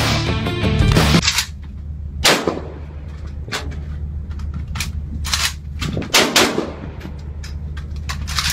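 Rifle fired in a string of single shots, irregularly spaced with some in quick pairs, starting about a second in. Music plays for the first second.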